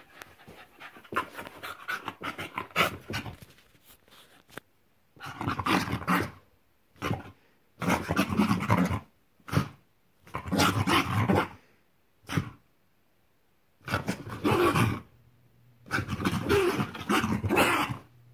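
Scottish Terrier growling in repeated rough bouts of about a second each, with short pauses between, while wrestling a stuffed toy in play.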